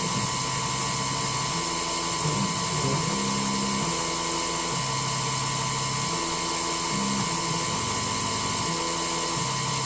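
Denford Triac CNC milling machine machining an aluminium part: a steady high whine from the spindle over lower tones that jump in pitch every second or so as the machine moves the cutter.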